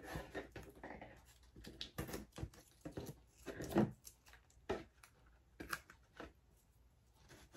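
Hands pressing and smoothing blue painter's tape down along the edges of a wood veneer sheet on a plastic cutting mat: irregular short rubs, crinkles and small taps.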